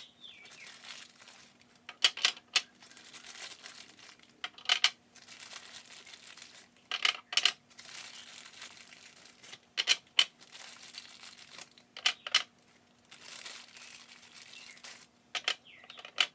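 Lubed brass rifle cases (.450 Bushmaster) clinking as they are set into a reloading tray, sharp clicks often in pairs every two to three seconds, with a plastic bag rustling between them.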